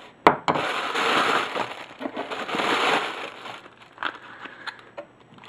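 A sharp click, then about three seconds of rustling and crinkling as packaging is handled and unwrapped, fading to quieter scattered handling noises.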